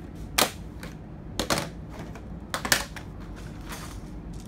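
Plastic airsoft pistols being set down one after another on a hard tabletop, giving a handful of sharp clacks about a second apart, some in quick pairs.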